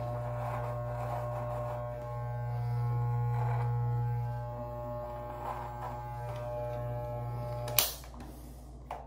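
Electric beard trimmer running with a steady buzz, louder for a stretch in the middle, then switched off with a sharp click about eight seconds in. A smaller click follows near the end.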